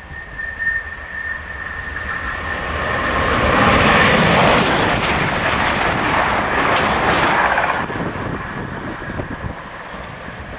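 Passenger train passing at speed: a thin high whine as it approaches, then a rising rush of wheel and rail noise that peaks about four seconds in, stays loud for a few seconds as the carriages go by, and fades as it runs away.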